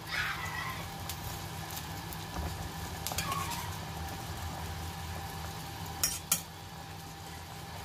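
Water at a rolling boil in a stainless steel pot, bubbling steadily, while a metal spoon stirs through it. About six seconds in the spoon clinks twice against the pot.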